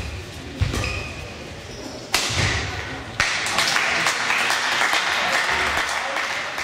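Badminton shuttlecock struck hard with rackets, two sharp cracks with thuds of players' footwork on the hall court. Then, about three seconds in, spectators break into steady applause.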